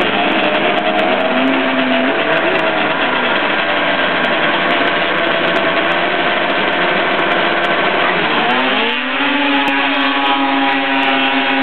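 Snowmobile engines running hard, their notes wavering up and down; about eight and a half seconds in, the pitch climbs sharply and then holds higher.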